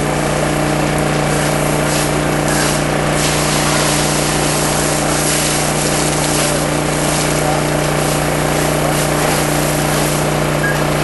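Steady engine drone of a fire truck running its pump to supply the hose lines, holding one even pitch, with a rushing hiss over it.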